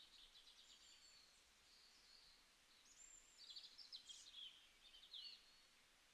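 Faint birdsong: a small bird's high chirps and trills, with a busier, louder phrase a little past halfway, over a faint steady background hiss.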